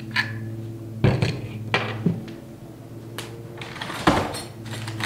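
Pole saw gear head and its plastic cover being pulled apart and set down on a table: a handful of separate knocks and clicks, about a second apart, over a steady low hum.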